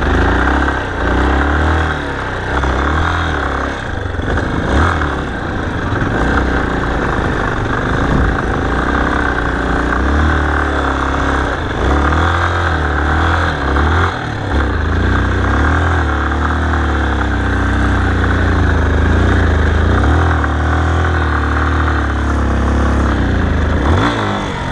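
Yamaha XTZ 250 Ténéré's single-cylinder four-stroke engine running under load as the bike is ridden through loose sand, its revs rising and falling with the throttle.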